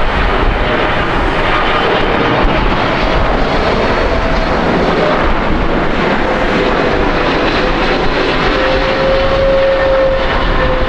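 Boeing 777-300ER on final approach with landing gear down, its twin GE90-115B turbofans giving a steady rush of jet noise with a low hum that slowly wavers in pitch.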